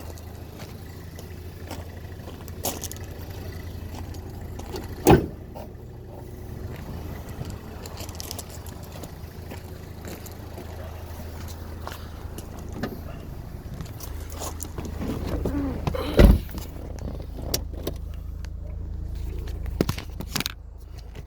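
A Pontiac Solstice GXP's 2.0-litre turbocharged four-cylinder engine runs steadily while cold, with scattered clicks and two sharp knocks over it. It is in the cold state in which the owner hears a whining or rattling noise that disappears once the engine reaches about 194–205°F.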